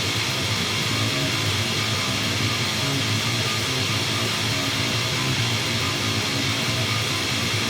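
Harsh, dense rock music with guitar, at an even loudness.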